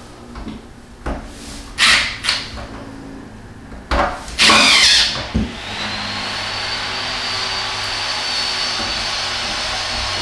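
Cordless drill driving screws in short whirring bursts, the loudest about four and a half seconds in, as a screen is fastened back onto an ozone generator. About halfway through a steady machine whir sets in with a faint high whine.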